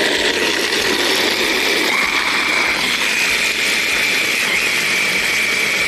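Electric stick blender with a chopper bowl running steadily at full speed, grinding chunks of hard cured grana padano cheese into a fine powder. Its motor whine rises slightly about two seconds in as the lower rattle of the cheese pieces eases.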